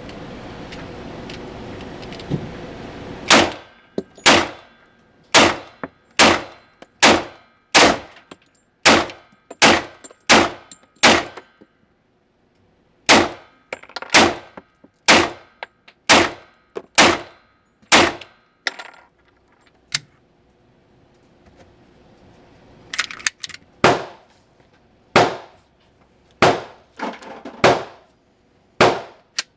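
FN 510 Tactical 10mm pistol firing, roughly one shot a second: a long string of shots, a pause of a few seconds, then a second string. Each shot has a short ringing tail.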